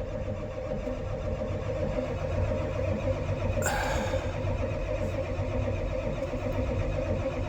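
Starter cranking a cold engine in 1-degree weather, turning it over steadily with a whine and rapid low chugging, without the engine firing. A brief louder burst comes about three and a half seconds in.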